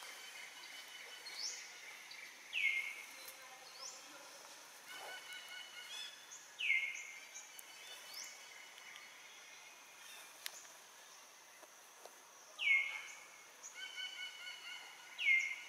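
A bird calling repeatedly: four short, high, downward-sliding calls a few seconds apart, with fainter rising and steady whistled notes between them.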